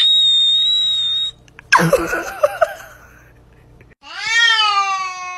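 A shrill, steady high squeal that cuts off a little over a second in, then a short wavering cry. From about four seconds in comes a long, drawn-out cat meow that rises in pitch and then holds.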